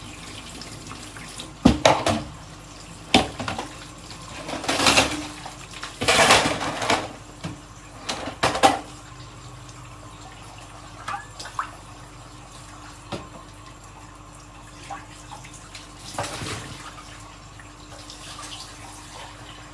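Dishes being washed by hand at a sink: several sharp clinks and knocks of dishes against each other and the sink, with a few louder splashing swells of water over a steady low background hiss.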